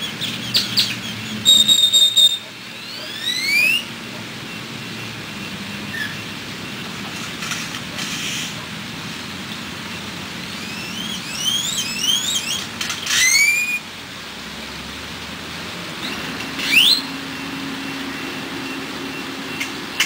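Great-tailed grackle calling: several bouts of sharp, upward-sliding whistles, with a harsh buzzy note about two seconds in and a patter of dry clicks near the middle.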